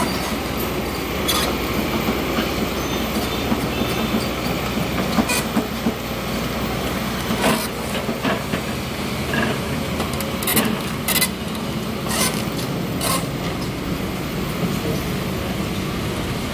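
Hydraulic excavator's diesel engine running steadily, with irregular sharp metallic clanks from the machine at intervals.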